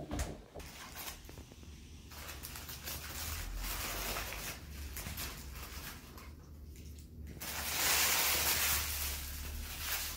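Two tabby cats play-fighting, with a hissing noise that swells to its loudest for about two seconds near the end, over a steady low hum.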